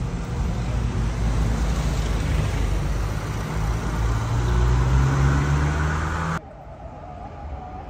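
Road traffic rumble, with a vehicle engine rising in pitch near the middle. The sound cuts off suddenly about six seconds in, leaving quieter street ambience.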